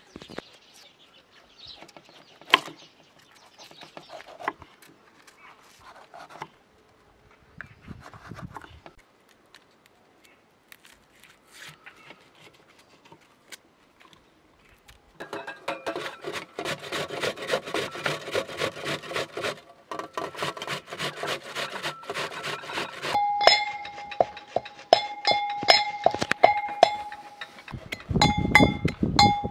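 Food-prep sounds: light clicks and knocks of handling vegetables, then about halfway a fast rhythmic rasping of a red onion grated on a metal box grater. Near the end a brass pestle strikes a brass mortar, crushing walnuts, each strike ringing with a clear metallic tone.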